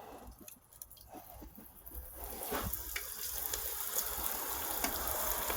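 Flour-battered venison frying in hot grease in a pan, an even sizzle that swells up about two seconds in and stays steady, with a few faint pops.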